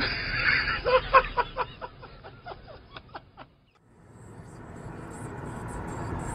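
A person laughing in a quick string of 'ha' pulses that fade away over about three seconds. After a brief gap, steady road and engine noise heard from inside a moving car.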